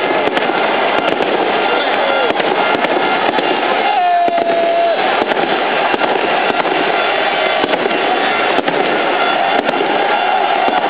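Fireworks and firecrackers banging repeatedly and irregularly over the loud, dense din of a street crowd shouting.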